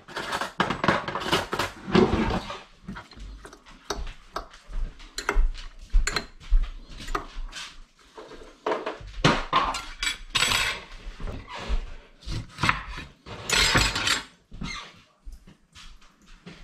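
Kitchen prep sounds: irregular clinks, taps and knocks of dishes and utensils on a counter and cutting board as a ramekin of shredded cabbage is mixed, with a few brief rustling hisses.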